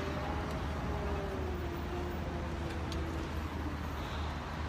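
Steady low rumble of outdoor city traffic, with a faint engine drone that sinks slightly in pitch over the first few seconds.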